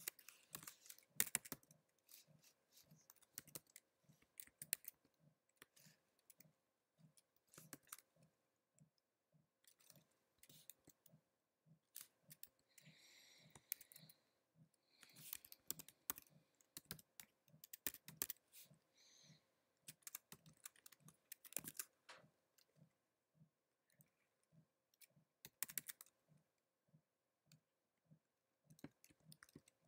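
Faint typing on a computer keyboard: irregular key clicks as a command is keyed in, with a few brief soft hissing sounds near the middle.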